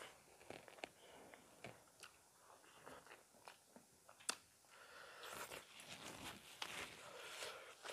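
Faint eating sounds: chewing and fingers working rice and chicken curry on steel plates, with scattered small clicks, the sharpest about four seconds in.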